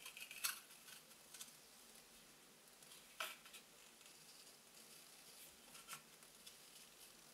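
Scissors snipping through gift wrap and a thin cardboard roll core: a few faint, brief snips and paper crackles, the clearest about three seconds in.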